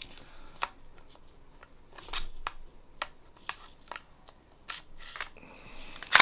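A Glock pistol's slide being worked onto its polymer frame, giving a series of separate sharp clicks and light scrapes, with the loudest click near the end. The slide resists going on because the trigger is not all the way forward.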